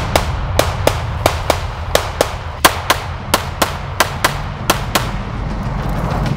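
Springfield Armory XDS 9mm pistol firing a fast string of about twenty shots, roughly four a second, that stops about five seconds in.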